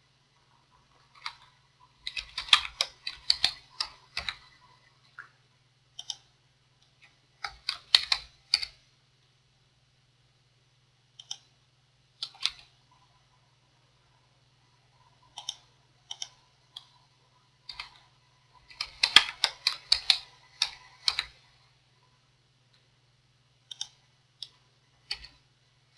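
Computer keyboard typing in three short bursts of keystrokes, a few seconds in, around eight seconds and around twenty seconds, with single clicks scattered in between. A faint steady low hum runs underneath.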